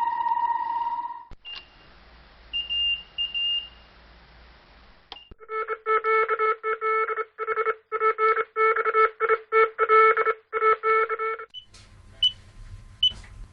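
A series of synthetic electronic beep effects. A steady electronic tone cuts off about a second in, two short high beeps follow, then a rapid run of short multi-tone beeps lasts about six seconds, and a few sparse high beeps come near the end.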